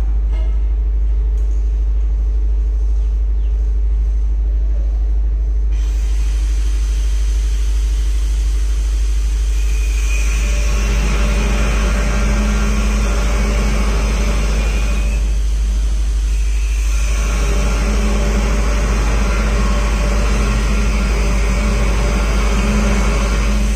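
A steady low hum. About ten seconds in a broad hiss joins it, drops away briefly a few seconds later and comes back.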